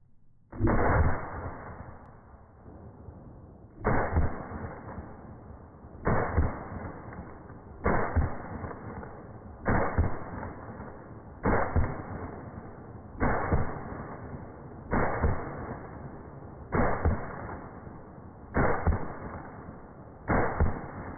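Saiga 12 semi-automatic 12-gauge shotgun firing eleven slow, evenly paced shots, about one every two seconds, each trailing off over a second or so.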